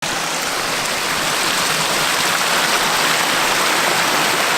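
Steady, even rushing noise with no distinct events, starting abruptly out of silence.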